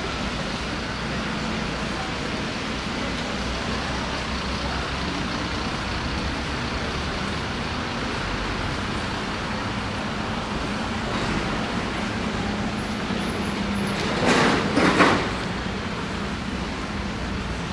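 City street ambience: a steady wash of road traffic noise with a low engine hum, and a brief loud hiss-like burst about fourteen seconds in.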